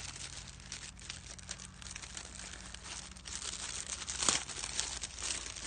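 Plastic packaging crinkling and rustling as the child's gardening smock is pulled out of it, in a steady crackle that gets louder about four seconds in.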